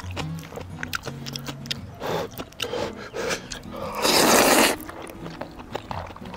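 Jjajang ramen noodles slurped, with one loud slurp of about half a second a little past the middle and shorter slurps and chewing clicks before it, over soft background music.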